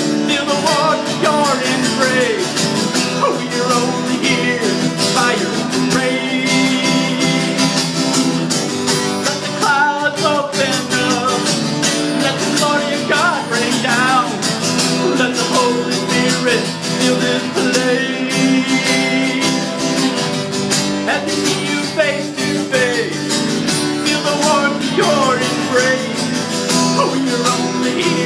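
Instrumental break in a country-style gospel song, led by guitar, with a melody line that slides between notes over a steady accompaniment.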